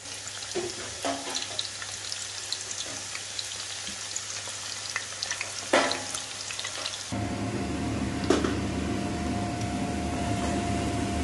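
Sliced red onions deep-frying in hot oil in a stainless steel pan on high heat: a steady sizzle full of small pops and crackles. About seven seconds in, the sizzle gets louder, with a low hum and a steady tone beneath it.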